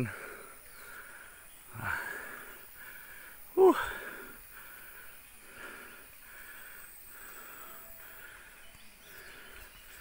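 Someone hiking a forest trail breathing hard, with a short voiced exhalation about two seconds in and a louder one just before four seconds. Behind it a faint forest call pulses evenly about twice a second.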